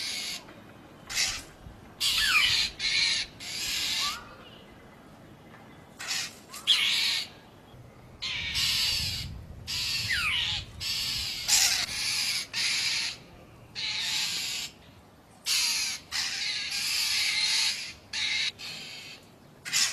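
Crows cawing harshly over and over, in loud calls of a quarter second to over a second with short gaps, some calls falling in pitch; a quieter spell of a couple of seconds falls about four seconds in and again about seven seconds in.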